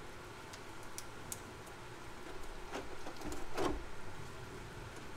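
Light handling noises of painter's tape and a paper template being pressed and shifted on a thin plastic RC car body: a few small clicks, then two louder rustles about three and three and a half seconds in, the second the loudest.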